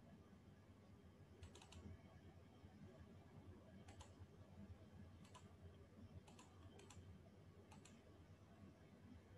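Near silence: a low steady room hum with a few faint clicks of a computer being used, several coming in quick pairs.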